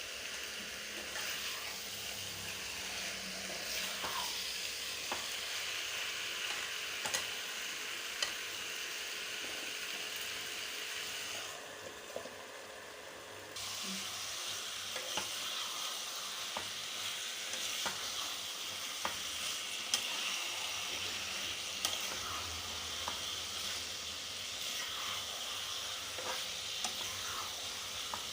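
Chicken pieces frying in masala in a kadhai, a steady sizzle with scattered small crackles and clicks. The high hiss drops away for about two seconds near the middle.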